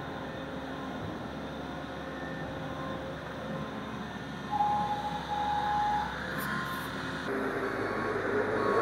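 Travel lift (mobile boat hoist) running with a steady mechanical hum as it drives up, a brief whine about halfway through, and a higher drone near the end.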